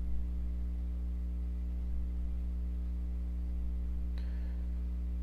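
Steady low electrical hum with its overtones, with a single faint click about four seconds in.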